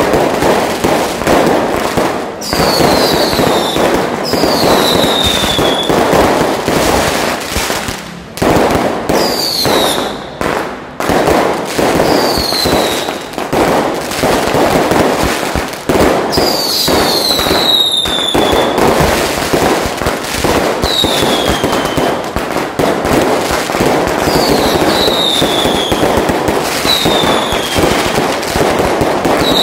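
A loud firework barrage: dense, continuous crackling bangs of firecrackers and aerial shells, with a short whistle falling in pitch about every two seconds.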